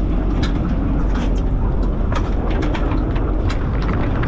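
Fishing boat under way: steady low engine rumble with wind on the microphone and many short sharp slaps or clicks scattered through it.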